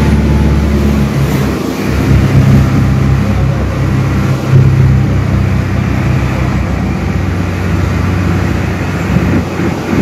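Motorboat engine running steadily at speed, a low drone, with wind and rushing water from the wake.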